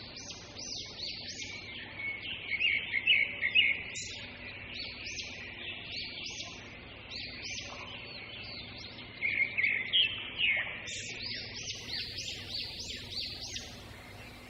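Birds chirping: many short, arching calls repeating over a steady high chorus, with louder, busier clusters about three seconds in and again around ten seconds.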